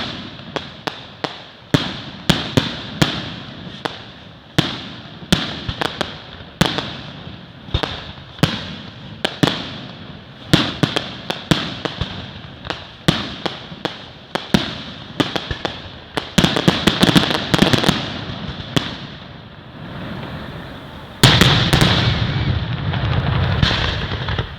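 Fireworks going off: a long irregular series of sharp bangs, several a second, each with a trailing echo. A dense, louder barrage of bangs starts a little after three quarters of the way through.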